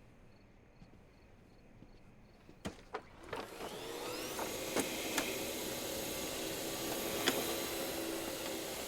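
Vacuum cleaner switched on after a couple of clicks about three seconds in, its motor rising in pitch up to speed and then running steadily.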